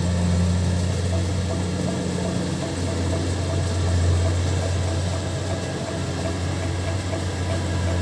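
Kubota DC70 Plus combine harvester's diesel engine running steadily with a deep, even hum while the machine drives forward harvesting rice.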